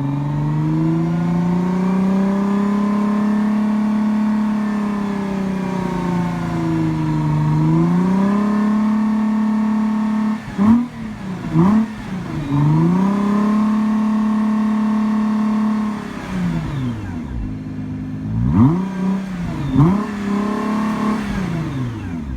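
2017 Nissan GT-R's twin-turbo 3.8-litre V6 being revved in place through its exhaust: held at raised revs for several seconds, then a couple of quick throttle blips around the middle, another long held rev, and two more sharp blips and a short hold near the end before the revs fall back.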